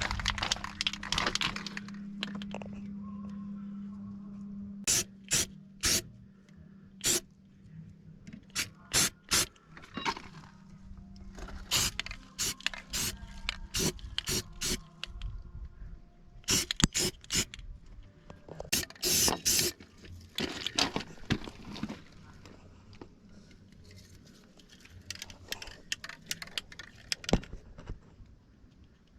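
Irregular sharp knocks and clicks, some in quick clusters, with some scraping, over a low steady hum that stops about five seconds in.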